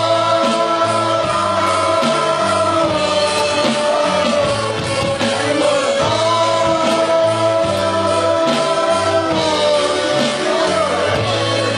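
Live rock band playing in a small room: a singer holds two long sung notes, each about three seconds, over drums and bass.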